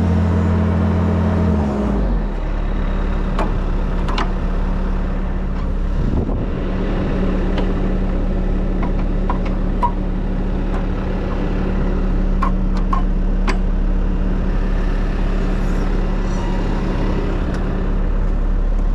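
Bobcat skid-steer's diesel engine running steadily; its engine note changes about two seconds in, with occasional short clanks from the machine working.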